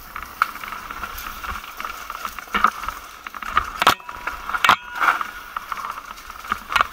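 Mountain bike rattling and clattering over a rough dirt trail, with frequent small knocks and two sharper jolts near the middle.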